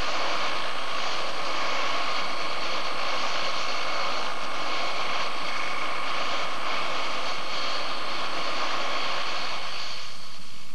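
Helicopter engine running steadily: a constant whine over a rushing noise that cuts off near the end.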